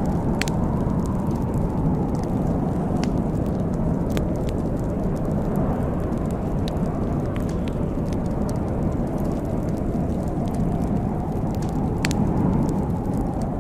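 Wood fire crackling in a fireplace, with scattered sharp pops and snaps at irregular times over a steady low rushing noise.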